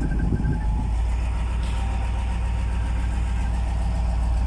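Hyundai D8AV diesel engine of a 12-wheeler truck idling steadily with a constant low hum.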